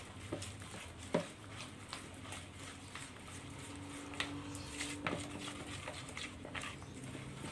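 Spatula stirring a thick rice-flour and egg batter in a plastic bowl: irregular soft taps and wet scrapes against the bowl's side.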